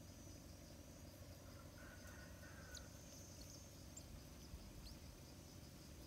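Near silence: faint outdoor ambience with a steady, high insect trill and low background noise, and a few faint short high chirps from about three seconds in.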